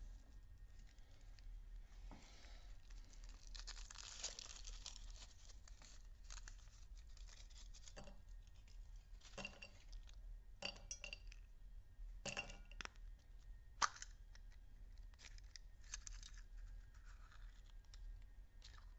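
Foil wrapper crinkling and tearing as it is peeled off a chocolate surprise egg, then a run of sharp clicks and snaps as the egg and its plastic toy capsule are handled, the loudest snap a little before the end.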